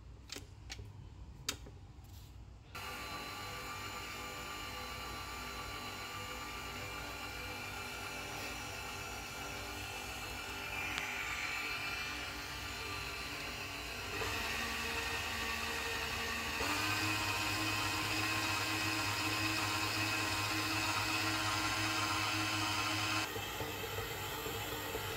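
Electric stand mixer running with a steady motor whine as its dough hook kneads flour and water into bread dough. It starts about three seconds in, after a few clicks, rises in speed and pitch twice, and drops back to a lower speed near the end.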